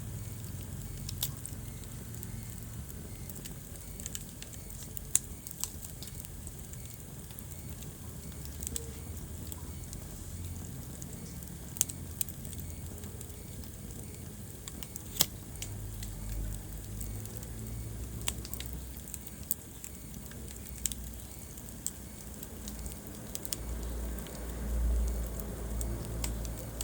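Wood fire burning in a fireplace, crackling, with sharp pops scattered irregularly over a steady hiss. A low rumble swells a couple of times in the second half.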